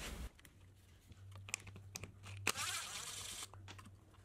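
Faint scattered clicks and a short rustling scrape of small plastic parts handled by hand: the center screw and pulley being taken off a hedge trimmer's recoil starter. A faint low hum runs underneath.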